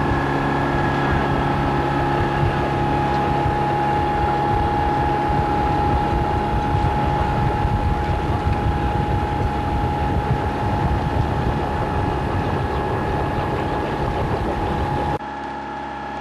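Auxiliary engine of a 29-ft Paceship sailboat running steadily under way: a constant hum with a steady high whine over it and a haze of wind and water noise. Near the end the level drops abruptly to a quieter, similar engine sound.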